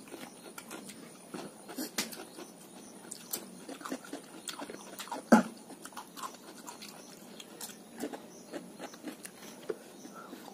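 Close-up eating sounds: chewing and mouth smacks with scattered clicks of forks and spoons on plates and bowls. The loudest is a single sharp knock about five seconds in.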